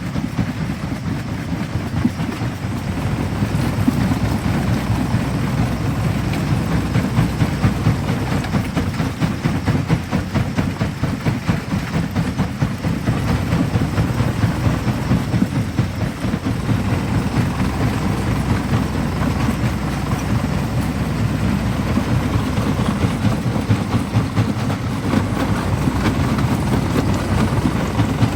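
Jaw crusher running and crushing stone: a heavy, continuous low rumble with dense rapid knocking and grinding throughout.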